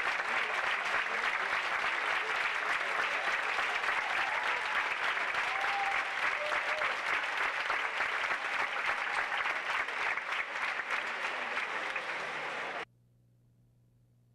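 Theatre audience applauding steadily. The applause cuts off abruptly near the end, leaving only a faint steady hum.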